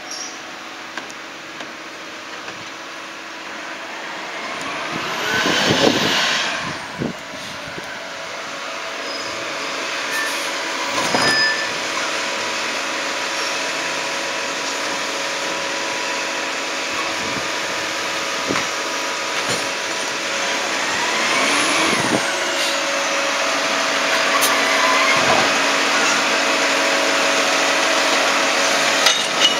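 CCC Labrie Automizer right-hand side-loader garbage truck running steadily and growing louder as it comes up to the curb, while its automated arm lifts and tips a cart. Two loud rushes of noise stand out, about five seconds in and again about twenty-two seconds in, with a knock about eleven seconds in.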